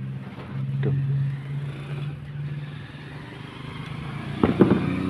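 A vehicle engine running with a steady low hum that fades away after about two and a half seconds, then a short burst of clattering about four and a half seconds in.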